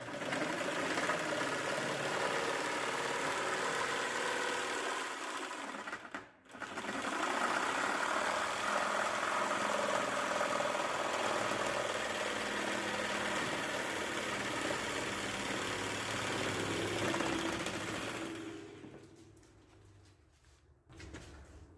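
Angle grinder cutting body panel. It stops briefly about six seconds in, runs again, then winds down near the end.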